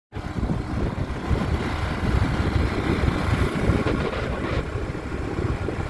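Wind buffeting the microphone outdoors: a loud, gusty rumble with no steady tone.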